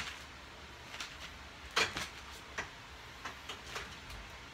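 A handful of scattered light knocks and clicks from a home power tower's metal frame and handles as a person climbs into it, the loudest just under two seconds in.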